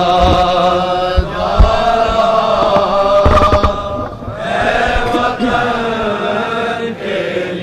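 Urdu noha chanted in long, drawn-out unaccompanied vocal notes that slide in pitch, with scattered dull low thumps of chest-beating (matam).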